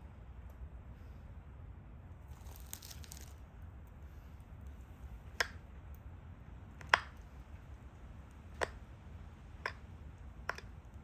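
Pressure flaking a stone Dalton point: five sharp separate clicks, each a small flake popping off its edge, the loudest about seven seconds in. A brief rustle comes about two seconds in.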